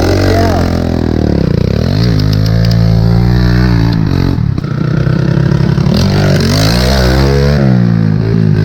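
Small off-road vehicle engine running and being revved, its pitch rising and falling with the throttle: steadier through the middle, then several quick throttle blips near the end.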